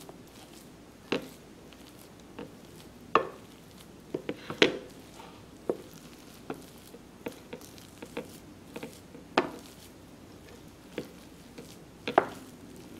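Spatula stirring and pressing mashed potatoes in a glass bowl, knocking and tapping against the glass in irregular sharp strokes, with the loudest taps about a third of the way in, past halfway and near the end.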